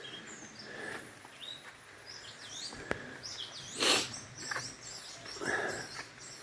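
Birds chirping in short high gliding calls, with a few louder noisy rustles at intervals, the loudest about four seconds in, and a sharp click near the three-second mark.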